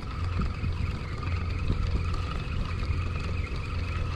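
A boat's motor running steadily, a constant low hum with a faint high whine over it.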